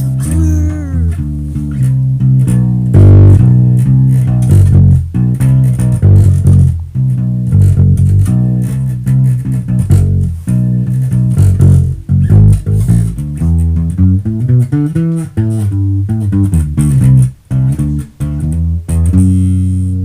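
A band's music with no vocals, led by a plucked bass guitar under guitar. It settles onto a held chord near the end.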